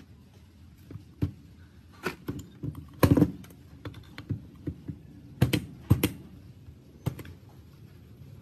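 Irregular clicks and knocks of a small two-stroke engine's metal crankcase and reed valve block being handled on a workbench. The loudest knocks come in a cluster about three seconds in and twice more around five and a half and six seconds.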